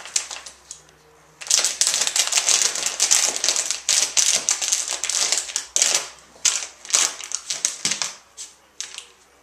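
A Welsh corgi gnawing and chewing a white knotted chew toy: a rapid, crackling run of clicks that starts about one and a half seconds in and thins out near the end.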